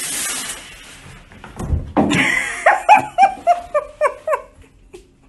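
A brief swishing rustle, a dull thud, then a person laughing in a quick run of short 'ha' sounds, about four a second, falling in pitch.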